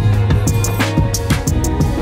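Music with a drum beat over a heavy bass line.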